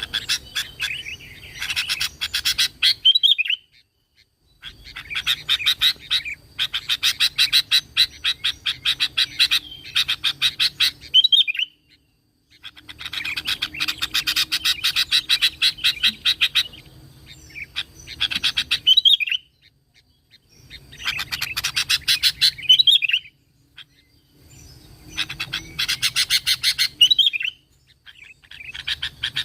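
Sooty-headed bulbul (kutilang) singing in repeated bouts. Each bout is a fast run of sharp chattering notes ending in a short warbled phrase, with brief pauses between bouts.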